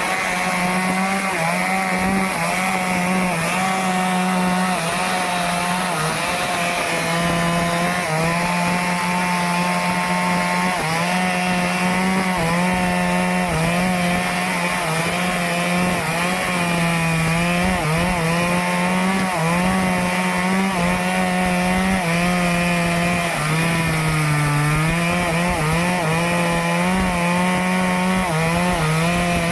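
Stihl chainsaw running at high revs while cutting through teak wood, its pitch sagging briefly under load several times and recovering, with the deepest sag late on.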